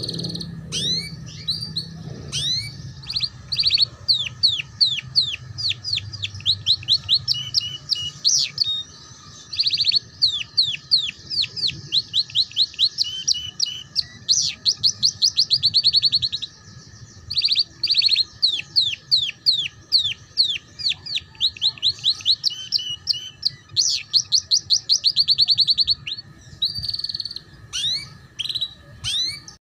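A yellow domestic canary sings in the ngeriwik style: long runs of sharp, quickly falling notes and fast rattling trills, broken by a few short pauses.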